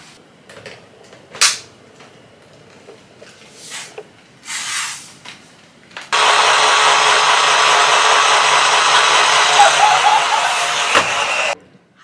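Plastic clicks and handling as the spinning sweeper head is fitted onto a Samsung Jet70 cordless stick vacuum, with one sharp click about a second and a half in. About six seconds in, the vacuum is switched on and runs loudly and steadily with a low hum, then cuts off suddenly near the end.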